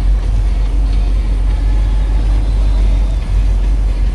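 Fishing boat's engine running steadily, a deep even rumble.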